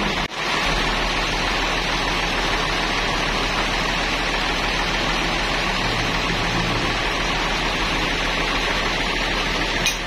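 Sawmill machinery running: a steady, even hiss-like noise with no distinct strokes, briefly dropping away just after the start.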